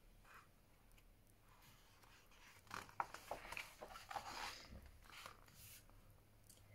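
A page of a large picture book being turned and the book handled: soft paper rustling with a few light clicks for a couple of seconds, starting about two and a half seconds in.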